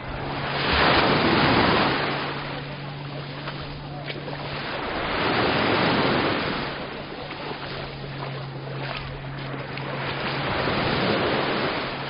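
Sea waves breaking and washing up a sandy beach, three swells of surf about five seconds apart.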